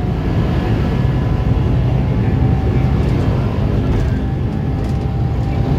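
Cabin noise of a Scania articulated bus under way: a steady low engine and road drone, with a faint high whine coming and going.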